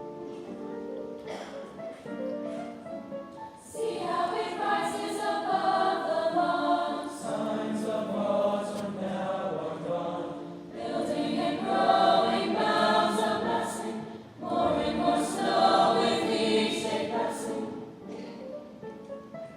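A school chorus singing in parts. It starts softly and swells louder about four seconds in, with sung phrases broken by brief breaths and sharp "s" sounds in the words.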